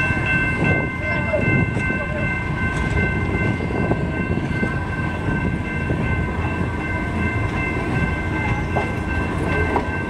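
California Western Railroad (Skunk Train) passenger train rolling slowly along the track, heard from an open car: a steady rumble of wheels and cars with a continuous high ringing tone over it.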